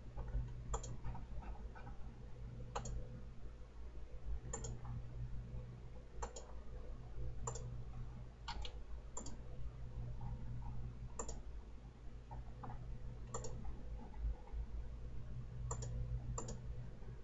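Computer mouse clicking, single sharp clicks at irregular intervals of a second or two, now and then two in quick succession, over a low steady hum.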